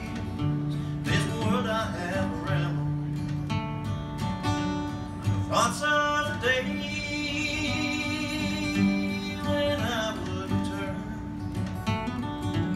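Acoustic guitar played with a man singing over it, holding one long note through the middle.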